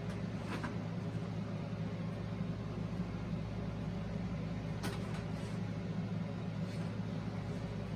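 Steady low hum of room background noise, with a few faint clicks and knocks as the boombox's plastic back cover is handled.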